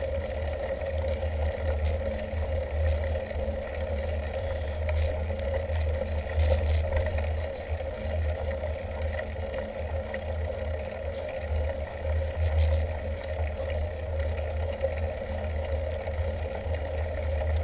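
Mountain bike rolling uphill on tarmac, heard from a handlebar-mounted camera: a steady low rumble of tyres and handlebar vibration with a faint even hum and light, regular ticks.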